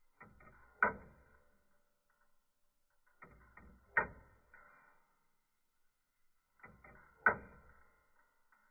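3D-printed plastic pin-pallet escapement of a Roskopf watch replica ticking. Three ticks about three seconds apart, each a short run of light clicks ending in one sharp click as the escape wheel tooth drops onto the pallet pin.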